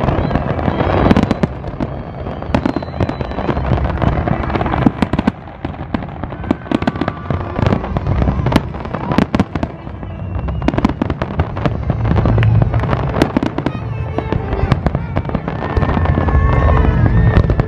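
Aerial fireworks display: many shell bursts banging in quick, irregular succession over a continuous low rumble.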